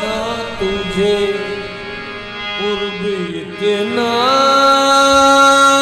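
Qawwali music: a melodic line that wavers and slides in pitch, then rises about four seconds in and is held steady.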